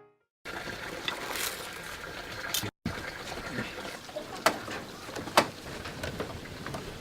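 Background noise with scattered small clicks and two sharp knocks about a second apart, after a brief cut to silence at the start.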